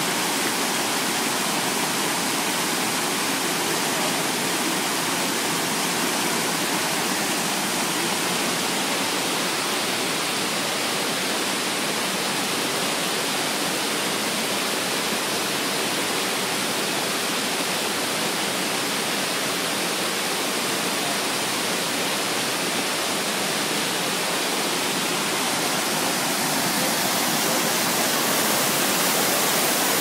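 Waterfall and whitewater creek rushing over rocks: a steady roar of falling water, slightly louder near the end.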